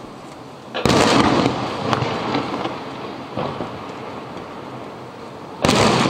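Aerial firework shells bursting: a loud boom about a second in that fades slowly as it echoes, a few fainter pops, then a second boom near the end.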